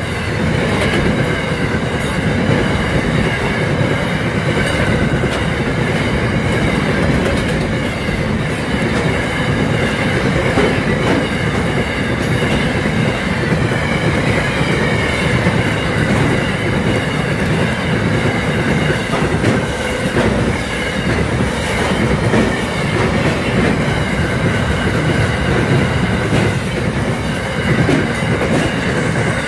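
Empty container flat wagons of a freight train rolling past: a steady loud rumble of steel wheels on rail with fast clickety-clack, and a steady high ringing tone on top.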